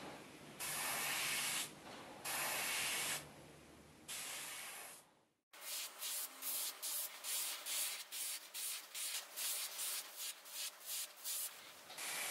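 Dual-action airbrush fed by a compressor, spraying thin coats of black acrylic paint: hissing bursts of about a second each with short pauses. After a brief drop to silence about five seconds in, it fires in quick short spurts, about two a second.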